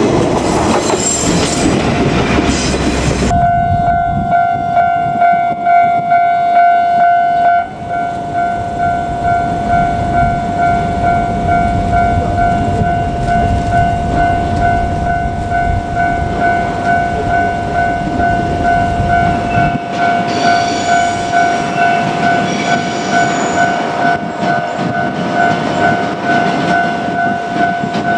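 A loud rumble, and from about three seconds in a long steady tone that pulses gently and holds to the end.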